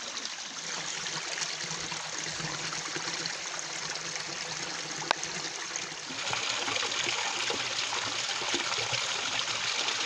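Mountain stream trickling and running over stones into a shallow pool. The water grows louder about six seconds in, and there is a single sharp click shortly before.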